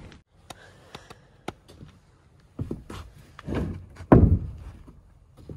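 Scattered sharp wooden knocks and a few dull thuds, the heaviest about four seconds in: framing lumber being handled and set down on a plywood deck.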